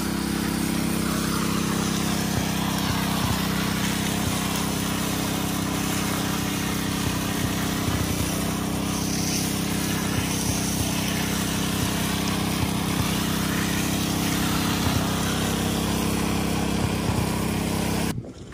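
Small engine-driven water pump running steadily, with the hiss of a high-pressure water jet from a hose blasting onto gravel. Both cut off suddenly near the end.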